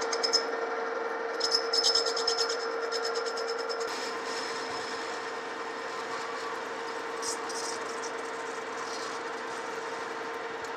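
Metal lathe running with a steady hum while its cutting tool faces the end of a turned metal shaft. Spells of fast, high ticking run through the first four seconds of the cut and come back briefly twice later.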